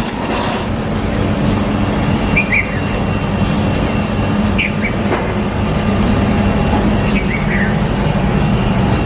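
A steady low mechanical drone, like a running engine or motor, with a few short, high bird chirps over it, around two and a half, four and a half, and seven and a half seconds in.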